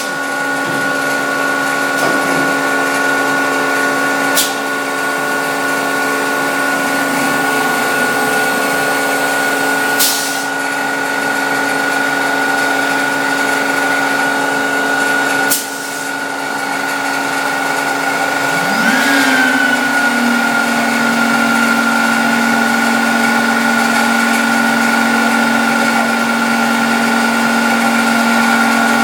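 CNC router running, its spindle giving a steady high-pitched whine as it machines wood. A few sudden breaks come through, and the tone glides and settles at a new pitch a little past halfway.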